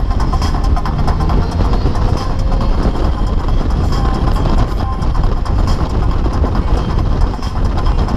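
Polaris Slingshot three-wheeler's engine running steadily under way, mixed with road and wind noise heard from the open cockpit.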